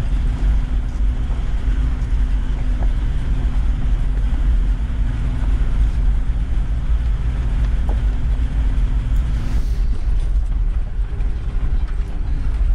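Toyota LandCruiser 70 Series driving along a dirt bush track, heard from inside the cabin: a steady low engine and tyre rumble.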